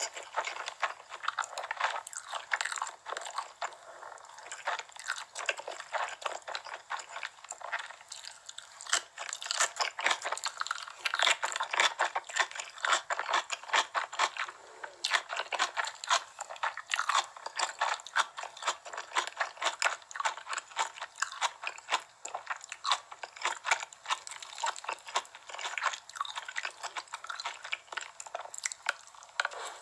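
Close-miked eating: repeated crunchy bites and chewing of crispy fried chicken, a dense run of crackles and crunches.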